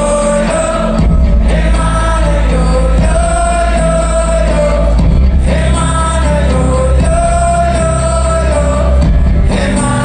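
Live amplified performance of a solo male singer with acoustic guitar, singing long held notes, heard through the hall's PA. A steady low bass drone comes in about a second in.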